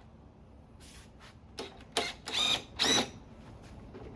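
Metal tools and parts being handled during motorcycle front-wheel removal: a few light clicks, then several short, louder metallic clanks and scrapes, two of them with a brief ringing squeal, about two to three seconds in.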